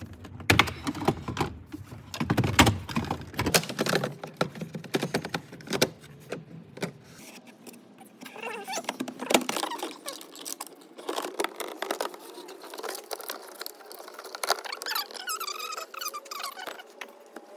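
Irregular clicks, taps and rattles of hands and tools working on plastic interior trim and parts, dense in the first few seconds and sparser afterwards.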